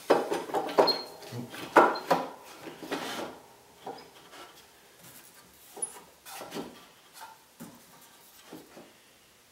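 Wooden tool rest of a homemade treadle lathe being moved along the wooden bed and set in place: a run of wood-on-wood knocks and scraping, loudest in the first three seconds, then a few fainter clunks.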